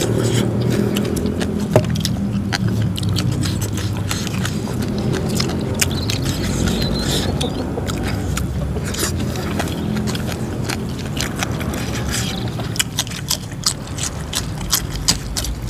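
Close-miked chewing of a mukbang meal: wet mouth clicks and crunching as raw leafy vegetables, rice and salted shrimp are eaten by hand. The clicks come more thickly near the end.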